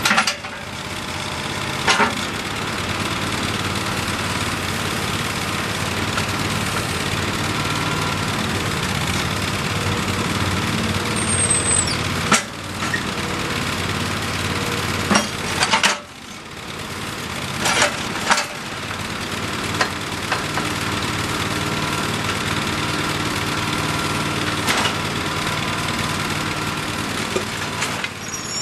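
Terramite T5C backhoe loader's engine running steadily while the machine is worked, with a handful of sharp knocks spread through, and the engine sound dipping briefly twice.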